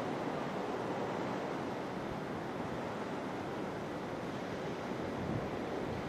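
Steady wash of sea surf and waves, with some wind noise on the microphone.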